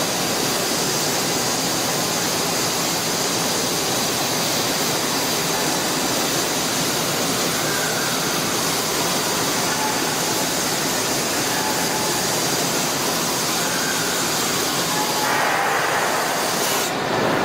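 Steady, loud rushing hiss of industrial metal-cutting and fume-extraction machinery. The tone brightens about fifteen seconds in and changes abruptly near the end.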